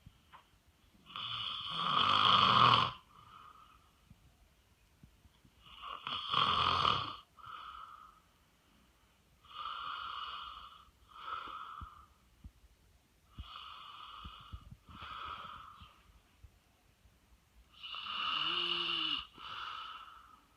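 Snoring in five slow, regular breaths about four seconds apart, each a longer snore followed by a shorter one; the first two snores are the loudest.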